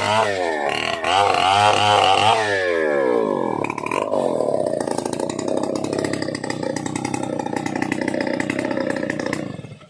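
Stihl 070 two-stroke chainsaw engine revved up and down, then settling to a steady idle. It shuts off near the end.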